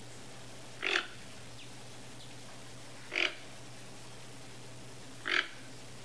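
Toco toucan giving three short, hoarse calls, about two seconds apart.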